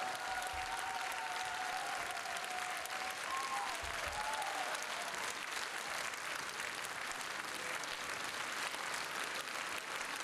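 Concert audience applauding steadily, dense clapping throughout. A held pitched tone sounds over the clapping for the first four seconds or so, then fades.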